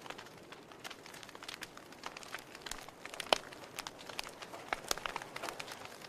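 Wood fire crackling in a fireplace: irregular pops and snaps from the burning logs over a soft hiss, with one sharp pop a little past halfway that is the loudest.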